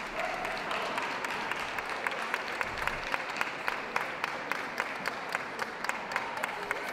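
Audience applauding, with clapping that falls into a fairly steady rhythm of about four claps a second.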